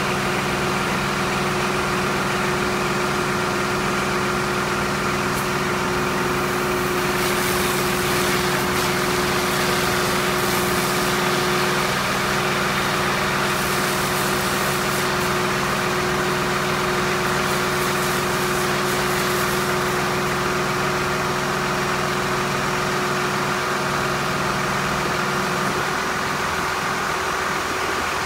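FMC LMD2000 aircraft deicer truck running steadily. The hiss of deicing fluid spraying from the boom nozzle starts about seven seconds in and stops after about twenty seconds. Part of the low hum drops away near the end.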